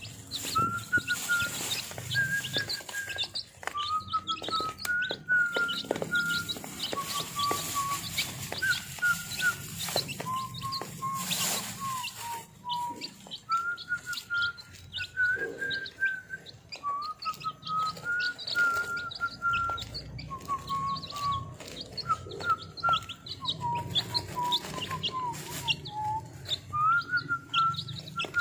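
Week-old domestic chicks peeping rapidly and continuously. A soft melody of held notes that step up and down in pitch plays underneath.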